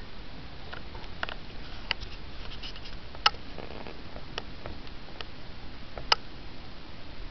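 Short, scattered bird chirps, about eight single calls, the sharpest about three seconds in and near six seconds, over a steady background hiss.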